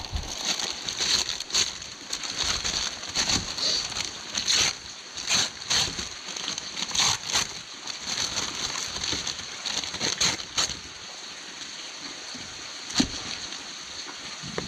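Rain falling steadily, with many irregular louder drips and taps.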